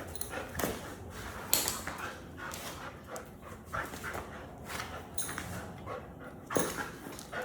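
An American bully dog making short, scattered dog sounds while it works. The sharpest bursts come about a second and a half in and again near the end.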